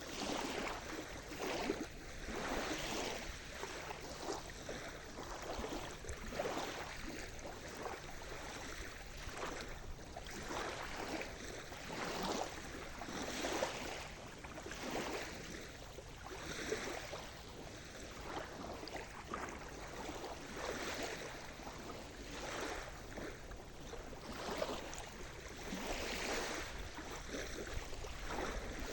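Sea surf: small waves washing and splashing in a continuous wash that swells and falls back every second or two.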